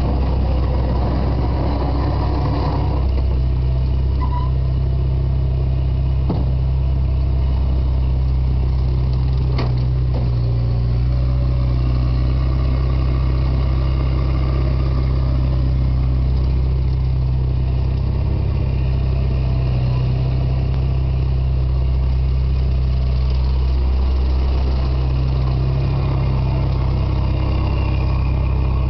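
Diesel engine of an ASV compact track loader running steadily while it pushes snow with its bucket, a low, even engine hum.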